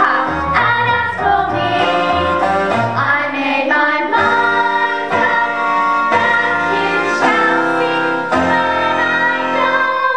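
Women singing a song into microphones over instrumental accompaniment with a steady bass line, played through a PA.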